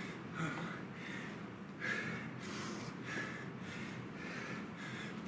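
A man breathing hard during a kettlebell interval workout: short, heavy breaths in a steady rhythm, a little under one a second.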